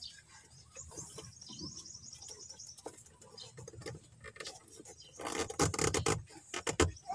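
Hands handling wiring and trim on a car's rear audio panel: faint rustles and clicks, then about five seconds in a loud run of rapid clicking and crackling lasting under two seconds.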